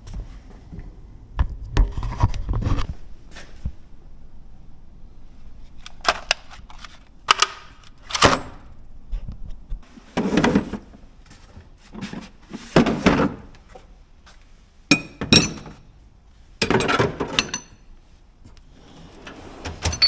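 Hand tools clinking and clunking as they are set into the drawers of a steel tool chest: a series of separate knocks and clatters every second or two, some short, some longer and rattly.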